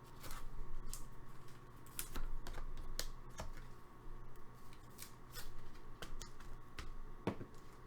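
Trading cards being handled: irregular sharp clicks and short rustles of card stock.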